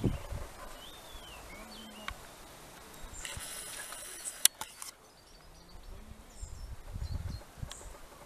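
European robin singing: a few thin, high whistled notes that slide up and down, spaced out rather than in a dense run. A stretch of hiss rises about three seconds in, with one sharp click about four and a half seconds in.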